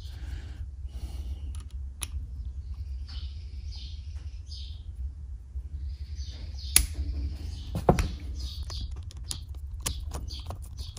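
Small metallic clicks and light scraping as a tiny screw held in a screw-holding tool is worked into the breaker-point plate of a Ford 2N distributor, with two sharper clicks about seven and eight seconds in. A steady low hum runs underneath.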